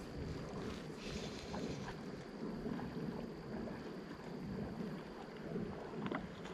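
Steady rushing noise of wind buffeting the microphone over creek water, with a faint tick about six seconds in.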